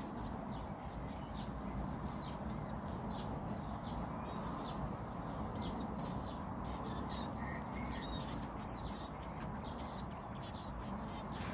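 Small birds chirping: many short, high, quick down-slurred chirps, one after another, over a steady background hiss.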